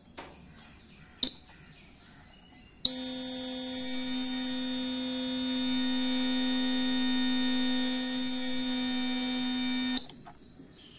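Water tank overflow alarm buzzer sounding a loud, steady high-pitched tone for about seven seconds, the tank-full alarm set off by its sensing wires touching the water. It cuts off suddenly when the alarm's silence push button is pressed.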